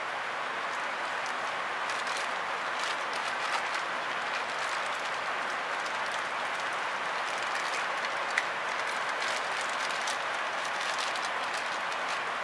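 Thin plastic bag crinkling and rustling as a camera lens is slid out of it by hand, with scattered small crackles and one sharper click about eight seconds in, over a steady background hiss.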